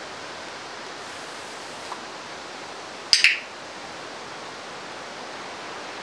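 A hand spray bottle spraying twice in quick succession about three seconds in, over a steady background hiss.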